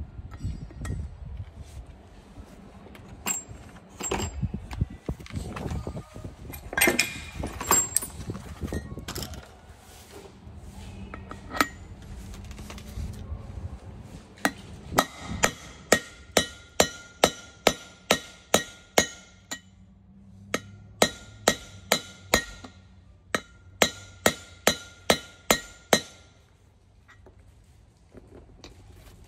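Hammer blows on a drift driving out a wheel bearing race inside a Ford F650's front hub: three runs of evenly spaced, ringing metal strikes, about two to three a second, in the second half. Before them come irregular clanks and scraping of metal parts in the hub.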